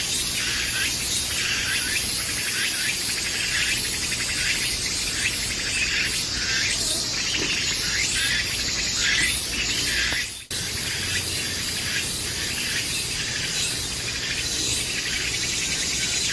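Dense chorus of forest insects, crickets or cicadas, a continuous shrill high buzz with rapid chirping. It breaks off for an instant about ten seconds in.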